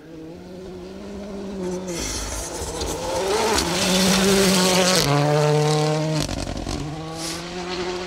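Ford Fiesta Rally2 rally car driven flat out past on a loose gravel stage. The engine note steps with quick gear changes, with gravel and stones spraying from the tyres. It is loudest as it passes about four seconds in, then fades as it pulls away.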